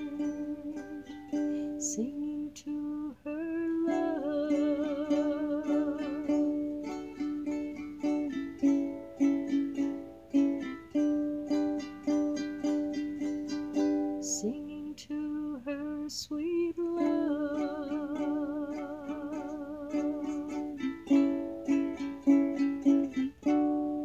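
Music: strummed strings play the end of a slow song while a singing voice holds long notes with a wavering vibrato.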